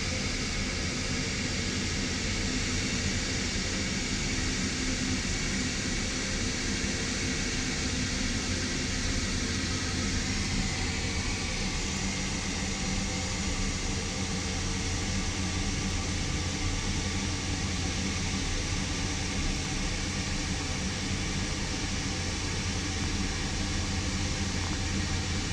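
Steady mechanical drone with a low hum under a constant rushing hiss, unchanging throughout.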